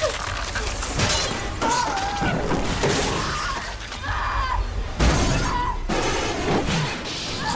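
Film sound of a subway train crash: glass shattering amid crashing impacts, the loudest hit about five seconds in, with high, wavering shrieks over the din.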